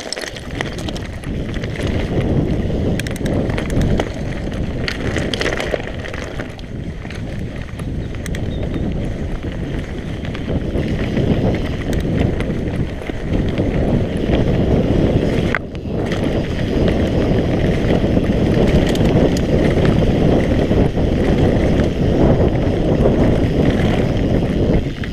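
Mountain bike descending a dirt trail at speed: wind buffeting the microphone over the rush of tyres on dirt, with scattered knocks and rattles from the bike over rough ground.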